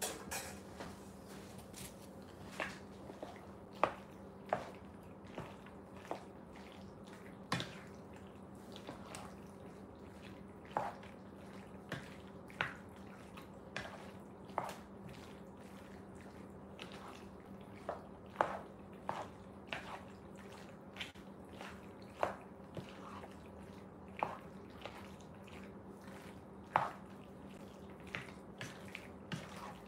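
Wooden spatula stirring pasta, chicken and broccoli in a large heavy pan: irregular taps and clicks of the spatula against the pan, about one or two a second, with wet squishing of the food. A steady low hum runs underneath.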